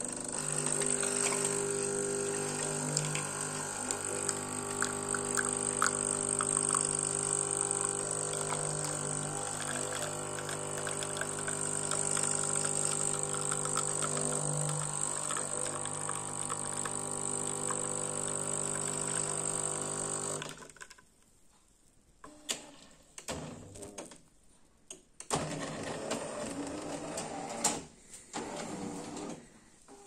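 Jura Impressa A5 bean-to-cup coffee machine brewing: a steady pump hum with a hiss of water and coffee pouring into the cup. It cuts off suddenly about 20 seconds in, and a few short, irregular clicks and rattles follow.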